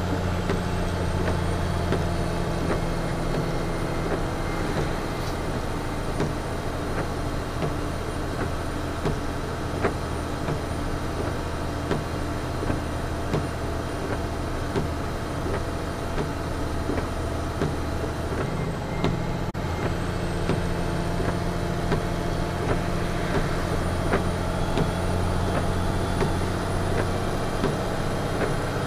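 Western Star semi truck's diesel engine running steadily in the cab as the fully loaded truck descends a steep grade in third gear direct. The steady tone shifts briefly about two-thirds of the way through, then settles again.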